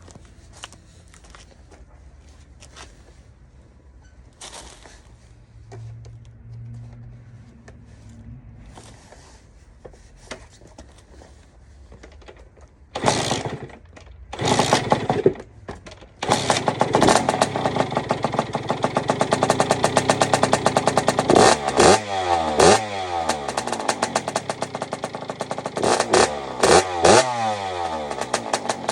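Kawasaki KX65's 65 cc two-stroke single-cylinder engine, freshly rebuilt with a new piston, being kick-started. It fires briefly twice, about halfway through, then catches a little later and runs. It is revved several times, each rev falling back to idle.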